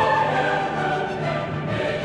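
Background music: a choir singing held notes over an orchestra.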